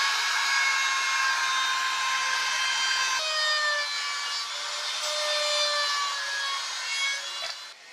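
Handheld electric trim router running at speed, its bit cutting into a wooden knife-handle block: a steady high whine over a rasping hiss. The whine shifts in pitch about three seconds in, and the sound dips near the end.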